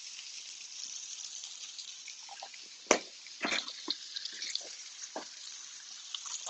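Steak sizzling in bubbling butter in a frying pan: a steady high hiss with scattered crackles and pops, the sharpest about three seconds in.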